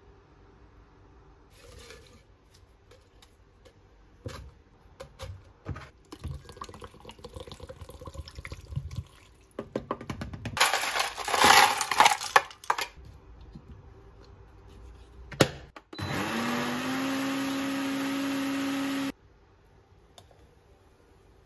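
Scattered knocks and clicks of items handled on a kitchen counter. Then water is poured from a bottle into a glass blender jar of pineapple chunks, the loudest sound here. Near the end a countertop blender runs for about three seconds, its motor rising in pitch as it spins up, then cuts off suddenly.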